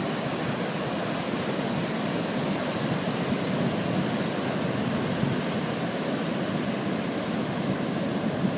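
Pacific Ocean surf: a steady rush of breaking waves.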